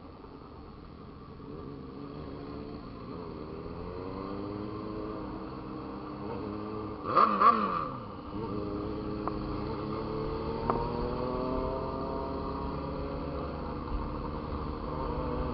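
Motorcycle engine under way, its revs climbing steadily, then dropping about eight seconds in and climbing again, as through a gear change. Just before the drop comes a brief, louder burst with a falling pitch.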